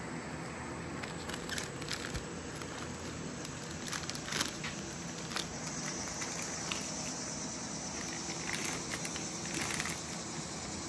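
Plastic shrink bag crinkling and rustling in short, irregular crackles as a dressed chicken is handled and slid into it, over a steady background hiss.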